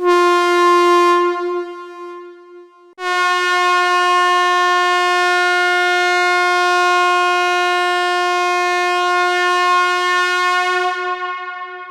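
Train air horn sounding one short blast, then a long steady blast starting about three seconds in that tails off near the end.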